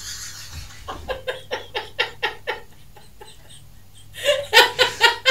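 A woman laughing in short, evenly spaced bursts, about four a second. A quieter run is followed by a pause and then a louder run near the end: a shrieking laugh that gets likened to a pterodactyl.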